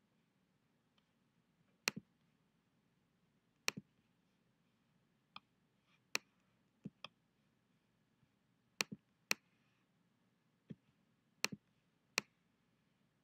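Sharp clicks of a computer mouse button, irregularly spaced one to two seconds apart, some in quick pairs, over a faint steady background hum.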